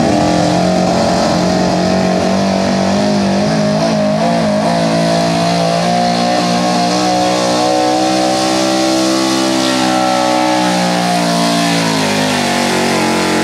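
Chevrolet square-body 4x4 pickup's engine at full throttle, pulling a weight-transfer sled in a truck pull. It holds a steady high-revving drone that climbs slightly midway and drops in pitch near the end.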